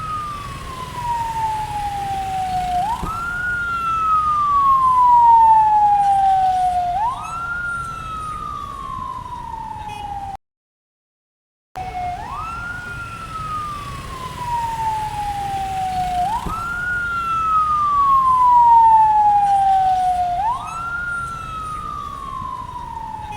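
Vietnamese ambulance siren: each cycle jumps up an octave in about half a second, then slides slowly back down over about three and a half seconds, repeating. It grows louder as it passes, then fades, over a low traffic rumble. The sound cuts out for about a second around ten seconds in, and the same pass then plays again.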